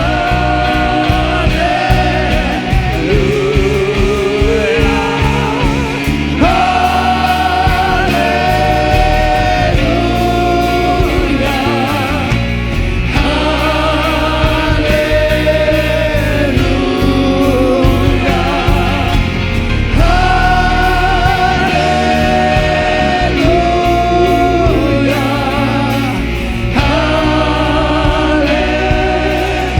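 Live worship band music: several voices sing long held notes in harmony, with vibrato, over a full band with drums.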